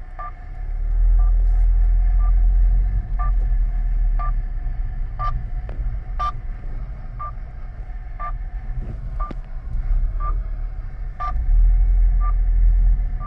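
Car driving slowly along a potholed lane, a low rumble that swells about a second in, with a few brief knocks from the rough surface. Over it an RF signal finder beeps steadily about once a second, locked onto the stolen excavator's tracker signal.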